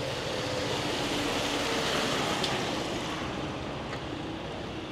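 Street ambience: a vehicle passing, a rushing noise that swells to its loudest about halfway through and then fades, over a steady background of traffic hiss.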